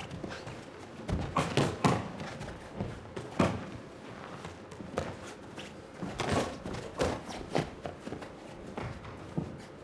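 Boxing gloves thudding as punches land, mixed with the boxers' shoes stepping and scuffing on the ring canvas, in irregular clusters of knocks. The loudest cluster comes about two seconds in, with another sharp hit about three and a half seconds in.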